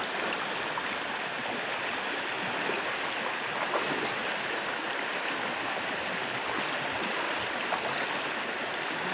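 Shallow, muddy creek water flowing steadily over sand, a continuous even rush of running water.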